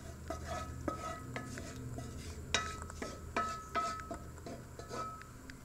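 A spoon scraping thick gravy out of a skillet into a glass baking dish: a run of irregular scrapes and knocks with short ringing clinks, the loudest about two and a half and three and a half seconds in.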